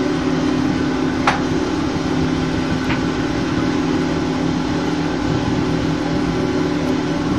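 A boat engine running at a steady speed, a constant low hum with a haze of water and hull noise. Two brief clicks, the first about a second in, the second near three seconds.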